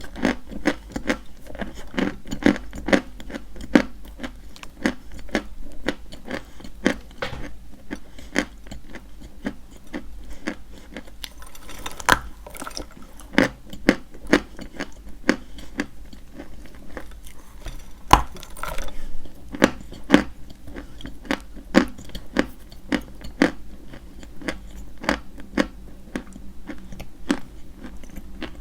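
Close-miked chewing of dry white edible chalk: a steady run of sharp, dry crunches, a few every second.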